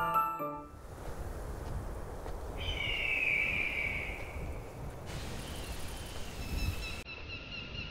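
Open-country outdoor ambience: a steady rumbling noise bed with bird calls, including one long, wavering call about three seconds in and a quick series of chirps from about seven seconds. A few piano-like music notes die away at the very start.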